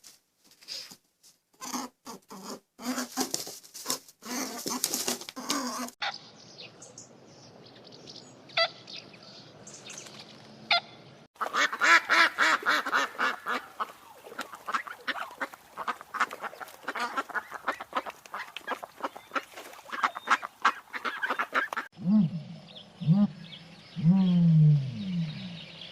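Ducks and geese quacking and honking, in several clips that change abruptly. Near the end come lower calls that slide in pitch.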